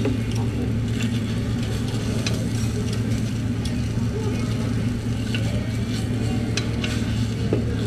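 Takoyaki batter sizzling in a hot cast-iron takoyaki pan while a metal pick clicks and scrapes against it every second or so, turning the balls. Underneath runs a steady low hum.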